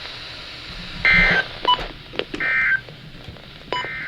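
Three short bursts of Emergency Alert System SAME digital data, a harsh two-tone warble from a weather radio, about a second and a third apart: the end-of-message code that closes the flash flood warning. Faint short beeps and clicks fall between the bursts.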